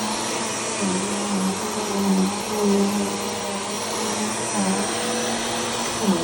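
Bissell PowerForce Turbo Pet upright vacuum cleaner running steadily. Its motor hum dips briefly in pitch every second or two, over a steady rush of air.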